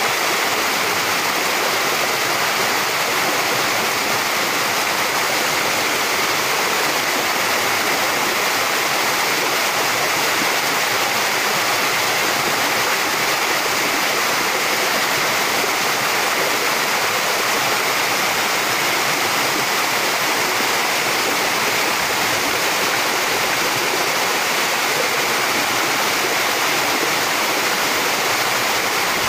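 Small waterfall pouring over stepped rock and splashing into a pool: a steady rush of falling water.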